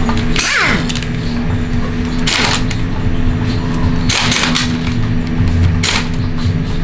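Metal tools or parts clanking and rattling four times in short bursts, over a steady background hum.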